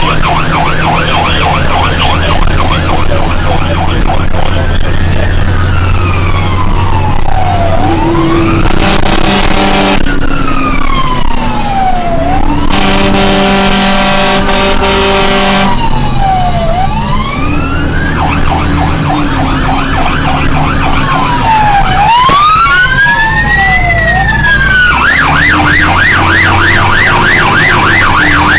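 Fire truck's electronic siren, heard from inside the cab, switching back and forth between a slow rising-and-falling wail and a fast yelp, over the steady run of the truck's engine. A deeper, steady horn blares twice in the middle.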